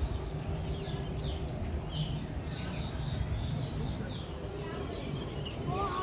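Many small birds chirping and twittering in an aviary, short high calls overlapping throughout, over a steady low background rumble.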